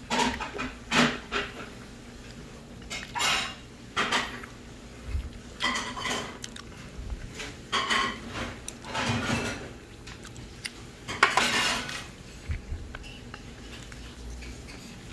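Metal chopsticks clinking and scraping against side-dish plates and bowls, in about a dozen irregular short clatters with a few longer scrapes.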